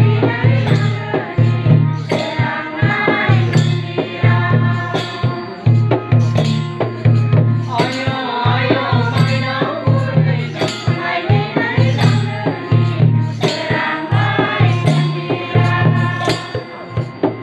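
Bodo traditional ritual music: a kham, the long barrel drum, beating steadily under jingling percussion, with a wavering sung melody.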